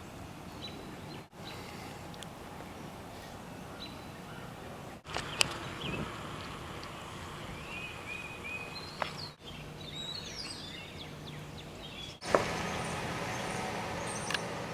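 Steady outdoor background noise with birds chirping now and then, including a run of repeated chirps in the middle. The sound breaks off abruptly four times and is a little louder after the last break.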